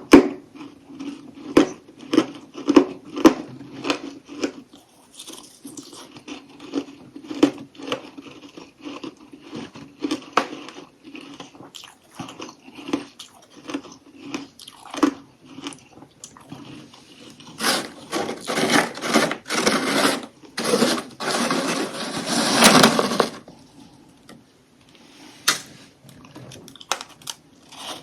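Close-miked chewing of crunchy humidifier freezer frost chunks: sharp crunches every half second or so, then several seconds of denser, louder continuous crunching past the middle, tapering to a few scattered crunches near the end.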